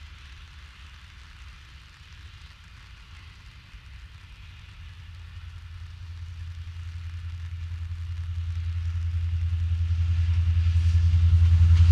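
New Mexico Rail Runner Express commuter train, hauled by an MP36PH-3C diesel, approaching: a low, steady diesel rumble that grows steadily louder.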